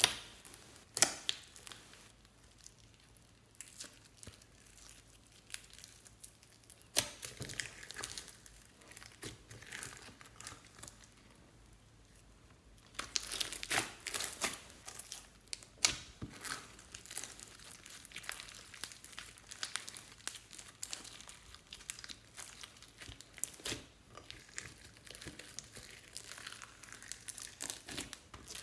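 Slime mixed with foam beads being pressed, kneaded and pulled apart by hand in a glass dish. It makes irregular sticky crackles and sharp pops, busiest about halfway through.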